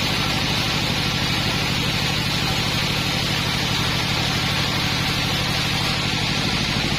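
A sawmill's engine running steadily at constant speed, with an even hiss above it.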